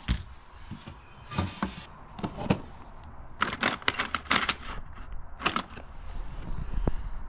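Scattered clicks and short clattering rattles of small hard objects being handled, with a dense flurry about three and a half to four and a half seconds in and another rattle a second later.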